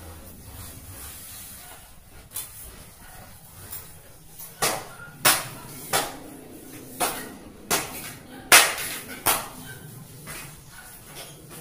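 A run of about seven sharp knocks, roughly one every three-quarters of a second, starting about four and a half seconds in, with a couple of fainter knocks before: hammering on the aluminium sliding-door frame as it is fitted.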